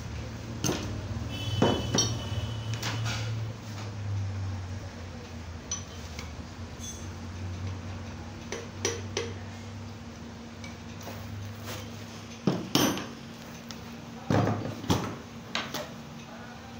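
Scattered metal clinks and sharp knocks from pistons being tapped down through a ring compressor into a Hyundai i10 engine block, with a cluster of knocks near the end.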